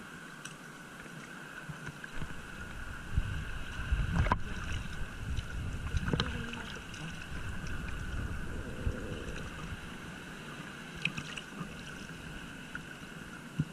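Shallow seawater lapping and sloshing around a wading angler, with wind rumbling on the microphone and a few sharp clicks as the fish and lure are handled.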